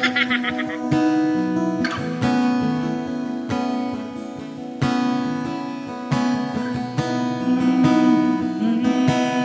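Acoustic-electric guitar being strummed, steady chords, recorded through a BM800 condenser microphone and V8 sound card.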